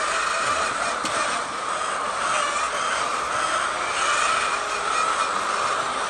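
Steady din of a large flock of hens in a poultry shed, with short higher-pitched calls standing out now and then.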